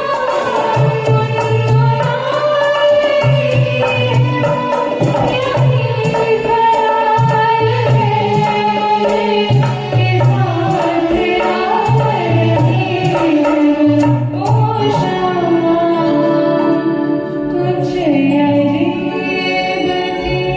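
A Hindi film song sung solo over instrumental accompaniment with a steady low rhythmic beat.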